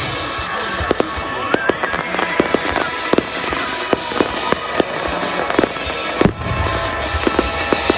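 Fireworks display: many sharp crackling pops and bangs, a rising whistle about a second and a half in, and a heavier boom about six seconds in, over background music.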